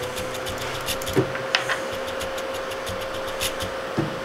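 Anycubic Kobra 3D printer homing at the start of auto bed leveling: its stepper motors give a steady whine as the print head travels, over a constant mechanical hum, with a few short clicks.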